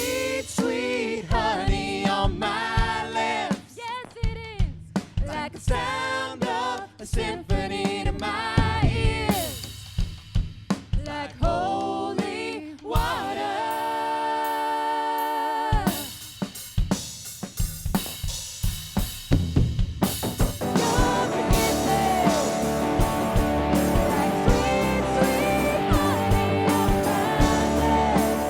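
Live church worship band: a singer over drum kit, holding one long note about halfway through. After a brief drop, the full band comes in with a fuller, denser sound for the last third.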